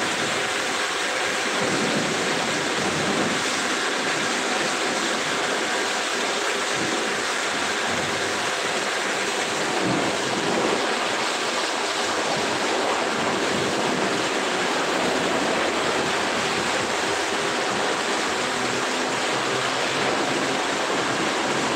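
Steady hiss of a high-pressure water spray hosing down a pickup truck's body, the water drumming and splashing on the metal.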